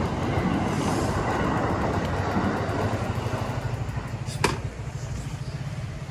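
Steady low rumble of street traffic, with a single sharp click about four and a half seconds in.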